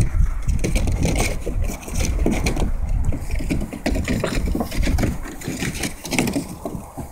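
Puppies wrestling in a hard plastic kiddie pool, their paws and bodies scraping and knocking on the plastic in quick irregular strokes, over a low rumble of wind on the microphone.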